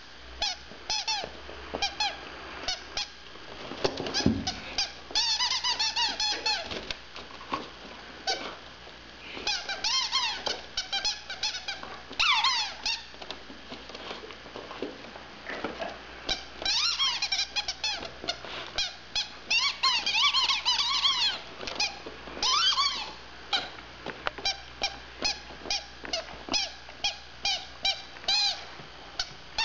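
A dog chewing a squeaky rubber toy: runs of short, high squeaks that slide up and down in pitch, coming in bursts with brief pauses between.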